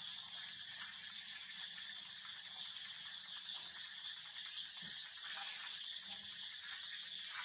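Steady high-pitched background hiss of the surroundings, with a faint soft knock about five seconds in.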